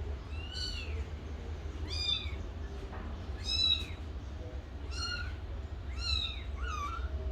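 Kitten meowing: about six short, high-pitched meows, one every second or so, each rising and then falling in pitch, over a steady low hum.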